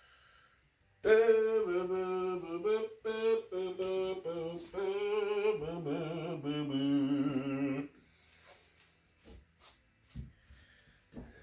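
A man's voice singing a few held, wavering notes with no instruments, for about seven seconds, stopping suddenly near the end. Then a few faint knocks.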